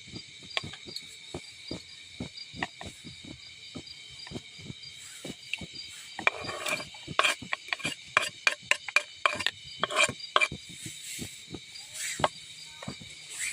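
Steady high insect chirring with many irregular clicks and knocks from things being handled, coming thicker and louder from about six seconds in.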